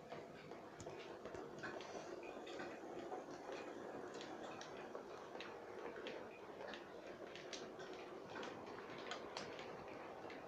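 Model railway freight train rolling past: a faint steady running hum with many light, irregular clicks as the wagons' wheels run over the track.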